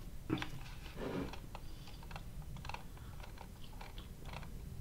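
Light, irregular clicking of laptop keys, several clicks a second, as the web page is scrolled.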